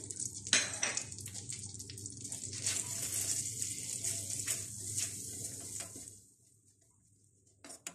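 Crushed coconut, sesame seeds and cumin sizzling in melted butter in a nonstick frying pan, frying as a tempering, with a metal spoon scraping and ticking against the pan as it stirs. The sizzle cuts off suddenly about six seconds in.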